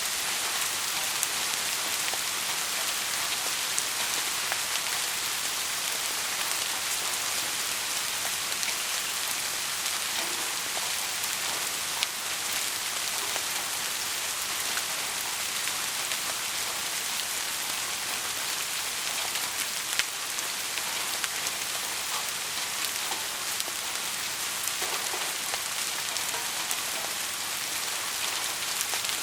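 Heavy rain falling steadily in an even hiss, with scattered individual drops ticking.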